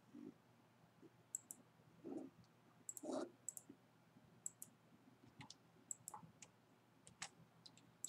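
Faint computer mouse clicks: a handful of short clicks scattered over near silence, some in quick pairs.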